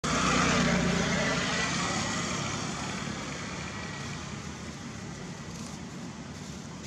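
A motor vehicle passing close on a road, its rushing noise loudest at the start and fading away over a few seconds into steady background traffic.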